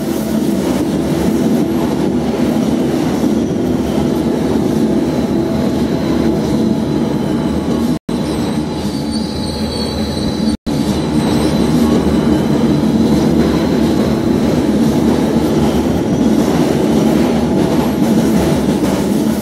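Berlin U-Bahn train running on its rails: a steady loud rumble with a thin high whine above it. The sound drops out completely twice, briefly, about eight and ten and a half seconds in.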